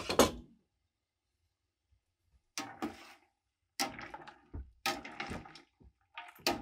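A spoon stirring yellow birch twigs through a pot of water: a swishing, sloshing stroke about once a second, starting a little over two seconds in. A sharp metallic clank right at the start.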